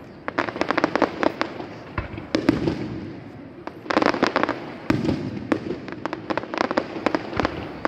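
Aerial fireworks bursting overhead, each burst followed by a rapid crackle of many small sharp pops. The crackles come in waves every second or two, with an occasional single deeper thump.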